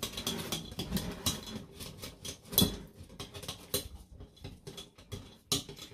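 Wire whisk beating a thin batter in a glass bowl, its wires clicking quickly against the glass; the clicking thins out to a few scattered taps about four seconds in.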